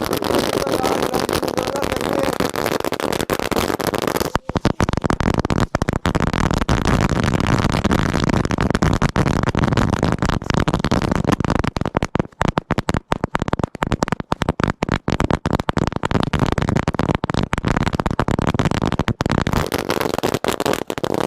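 A long Diwali firecracker string (ladi) bursting in a continuous rapid crackle of small bangs. About four seconds in the sound turns duller, losing its sharp top end.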